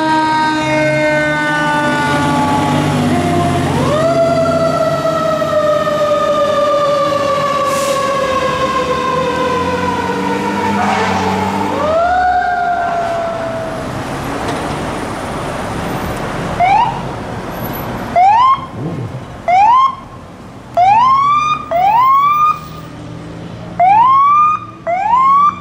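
Emergency vehicle siren wailing in long sweeps that rise quickly and sink slowly. From about two-thirds of the way in it changes to a string of short rising chirps, each cut off sharply.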